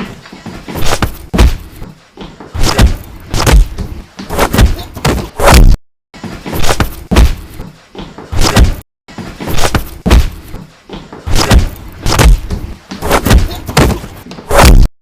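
Fight sound effects: a rapid series of heavy punch and hit impacts, deep thuds coming about one or two a second. The series is broken twice by brief dead-silent gaps.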